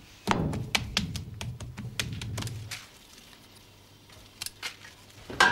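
Rustling with a quick run of light clicks as the cloth-wrapped salt cod on a china plate is handled, then a few separate snips of scissors cutting nettle leaves from the stem near the end.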